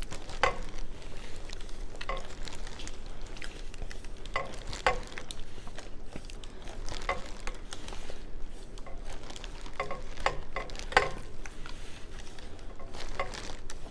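Seafood boil being handled and eaten: a sauce-soaked plastic bag crinkling, wet squishes of sauced shellfish being picked up, and scattered short clicks and smacks.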